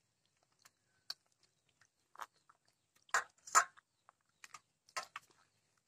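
Wet squelching and sloshing as a hand squeezes and mashes fibrous ripe palmyra palm fruit in water in a steel bowl, coming in irregular short bursts, the loudest a little past halfway.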